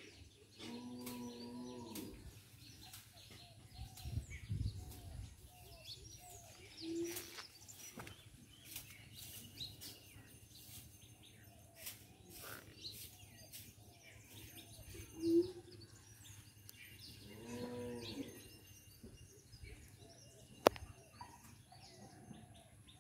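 Faint outdoor ambience: a cow moos twice, once near the start and again about three-quarters of the way through, each call lasting about a second and a half, with small birds chirping throughout. A single sharp click comes near the end.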